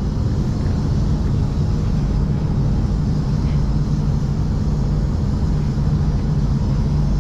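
Downdraft spray booth's extraction fans and airflow running with a steady low rumble.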